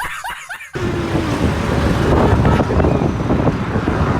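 A short repeating rising sound stops abruptly under a second in. Loud wind buffeting the microphone follows, with a low vehicle rumble under it.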